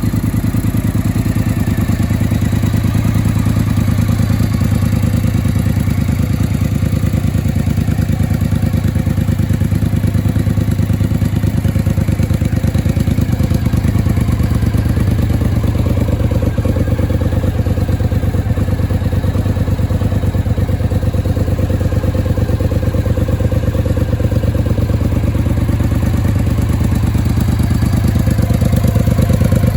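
2003 Triumph Bonneville Speedmaster's air-cooled parallel-twin engine running steadily at a constant, idle-like speed through its original Triumph exhaust, with a full, muffled note.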